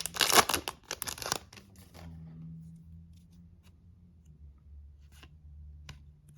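Foil trading-card pack wrapper crinkling and tearing for about the first second and a half. After that a low steady hum remains, with a few faint clicks as cards are handled.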